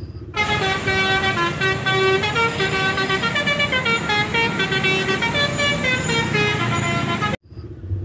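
A bus's multi-tone 'telolet' horn (Basuri type) playing a tune of held notes that step up and down in pitch. It cuts off suddenly near the end.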